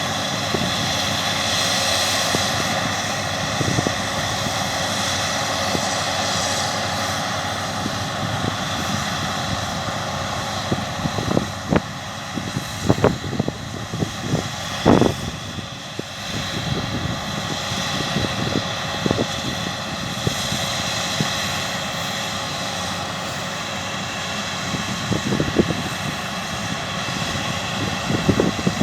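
Combine harvester working in the field: a steady engine drone with a layered whine, broken by a run of sharp knocks about halfway through and a few more near the end.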